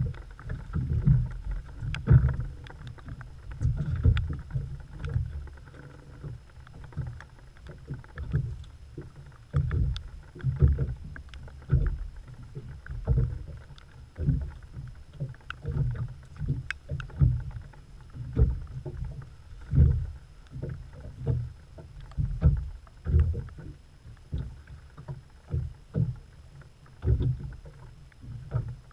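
Choppy lake water slapping against the hull of a small open boat, irregular low thuds about once a second.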